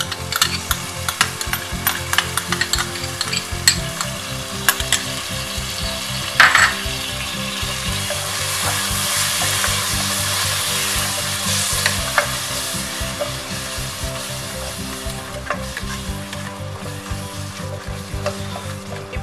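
Wooden spatula stirring and scraping fresh curd into frying masala in a nonstick pan, with the mix sizzling steadily. Many sharp clicks of the spatula against the pan early on, and the sizzle grows louder in the middle.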